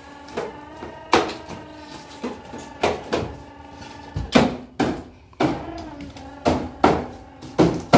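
Hammer blows on metal: about a dozen irregular strikes, each leaving a short metallic ring.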